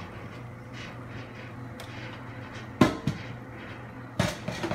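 Instant Pot pressure-cooker lid being lifted off and set aside. There is a sharp clunk about three seconds in, a lighter one just after, and a few quicker knocks near the end, over a steady low hum.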